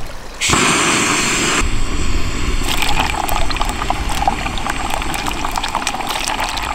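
Olive oil and clarified butter frying in a small Jetboil pot on a gas canister stove. A sudden loud hiss starts about half a second in, and from about three seconds in the sizzling carries on with dense crackles and pops.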